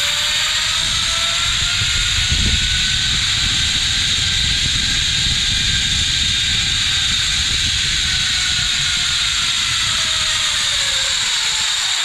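Zipline trolley's pulleys running along a steel cable, a whirring whine that slowly rises in pitch as the rider picks up speed and falls away as they slow toward the end of the line. Wind rush on the helmet microphone under it.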